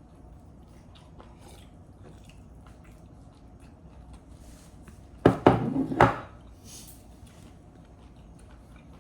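Eating sounds at a meal: faint chewing and small clicks of utensils and dishes, then about five seconds in a short loud burst of sharp clicks and noise lasting under a second.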